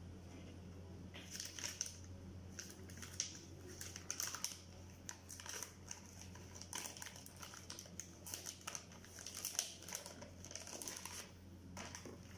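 Lumpia wrappers and the paper packaging beneath them crinkling and rustling as hands peel and handle them, in irregular bursts that start about a second in and stop near the end. A steady low hum runs underneath.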